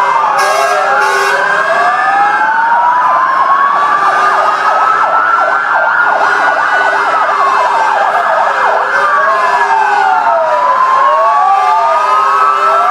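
Loud wailing sirens of several fire trucks sounding together. Each siren slowly rises and falls in pitch, the sirens overlapping out of step with each other, over a steady lower tone.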